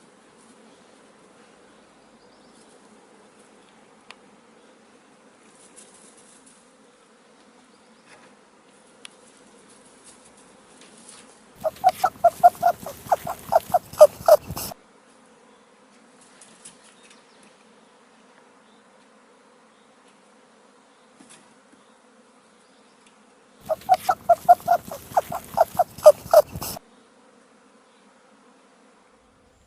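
An animal calling in two loud bursts of rapid, evenly repeated pitched pulses, each burst about three seconds long, over a faint steady hum.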